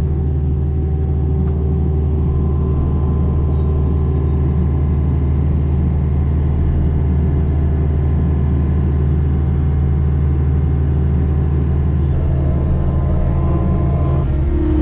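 Farm vehicle engine running steadily at a constant note, its pitch shifting near the end.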